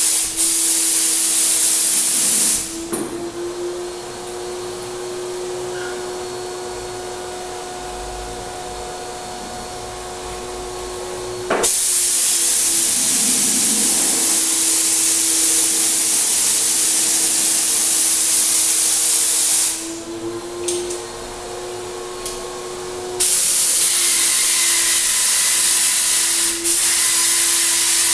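Graco HVLP 9.5 turbine sprayer running with a steady hum while the spray gun is triggered, giving a loud even hiss of air and paint. The hiss stops twice, about 3 s in for nearly nine seconds and again around 20 s for about three seconds, leaving only the turbine hum.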